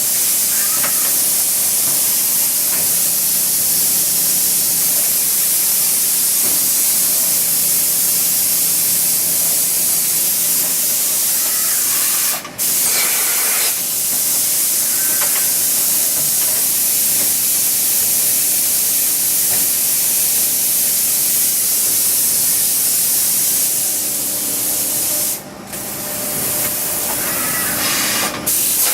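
Mazak H-400N CNC horizontal machining center running with a steady high spraying hiss and a faint low hum beneath it. The hiss cuts out briefly twice, about twelve seconds in and again near the end.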